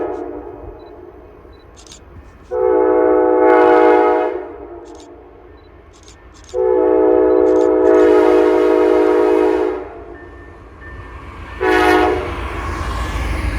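Amtrak California Zephyr locomotive's chime air horn sounding its grade-crossing signal: the end of one blast, then two long blasts and a short one. Near the end the train's rumble builds as it reaches the crossing.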